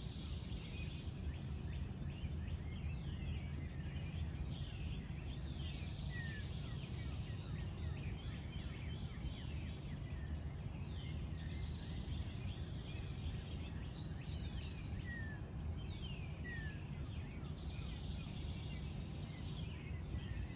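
Many birds chirping and singing in short, quick falling notes throughout, over a steady high-pitched insect-like buzz and a constant low background rumble.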